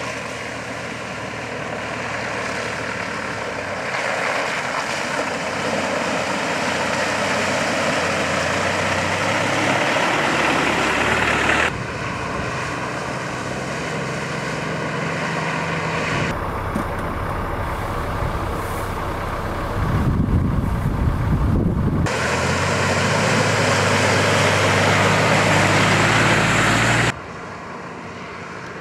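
Four-wheel-drive vehicle engine and tyre noise while driving off-road, in several edited segments that start and stop abruptly. A heavier low rumble comes about two-thirds of the way through.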